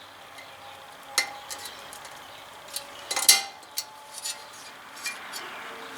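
Scattered sharp metal clinks and clicks of snap-ring pliers and a steel retaining clip being handled at the wheel-bearing knuckle. The loudest clink comes about three seconds in, with a few lighter ones around it.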